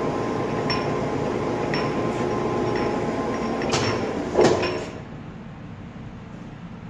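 Kuraki hollow-spindle engine lathe running under power, a steady gear-train whir with a faint tone and a light tick about once a second. A clunk comes about four and a half seconds in, and the running sound then drops away quieter.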